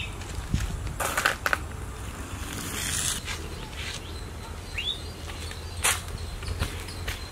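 Outdoor ambience with small birds giving a few short rising chirps over a steady low rumble, broken by several brief sharp crackles, the loudest about a second in and again near six seconds.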